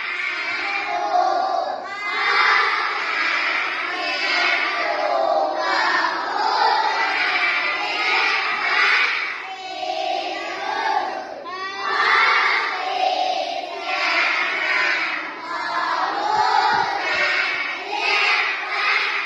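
A group of children singing loudly together in unison, phrase after phrase, each lasting about two seconds.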